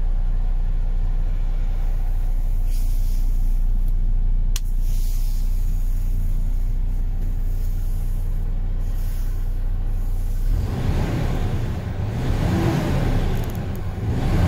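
MAN TGX 26.440's six-cylinder diesel idling in neutral, heard from inside the cab as a steady low hum, with a single click about four and a half seconds in. The sound turns rougher and noisier about ten seconds in.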